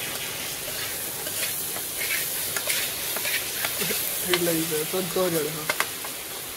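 Beans frying in a non-stick kadai, sizzling steadily, while a steel spoon stirs them. The spoon clicks and scrapes against the pan now and then.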